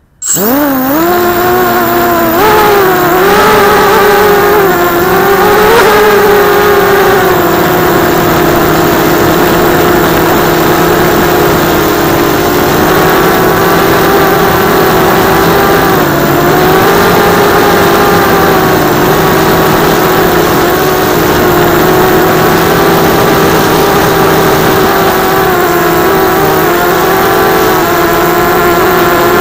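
The brushless motors and propellers of a 250-size FPV racing quadcopter (RCTimer 2206 2300 kV motors) spin up from rest with a quickly rising whine. They then run with a steady whine whose pitch wavers up and down with the throttle during flight, heard close up through the drone's own onboard camera.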